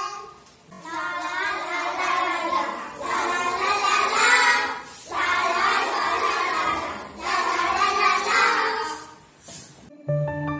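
A group of children singing a Tamil action song together in chorus, in phrases broken by short pauses. Near the end the singing stops and soft instrumental music with held notes begins.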